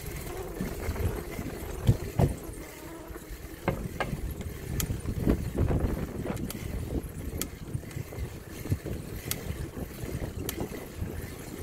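Bicycle rolling across a footbridge: a low rumble with scattered rattling clicks and knocks from the bike at irregular moments.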